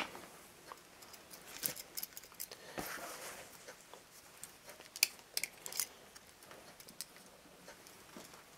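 Scattered light clicks and rustles of packing material being handled in a cardboard shipping box lined with bubble wrap.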